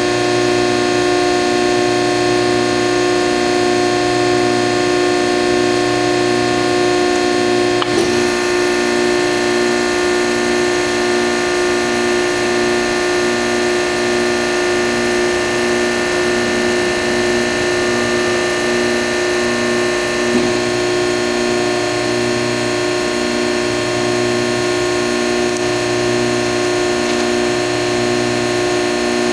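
Standard Industrial AB325-12 hydraulic CNC press brake running, a steady machine hum with a tone that pulses about once a second and a lower hum that comes and goes in spells. A short sharp click about eight seconds in and another about twenty seconds in.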